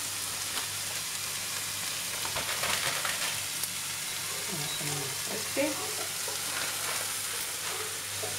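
A sofrito of onion, red pepper and diced ham sizzling steadily in a frying pan, with a few faint clicks.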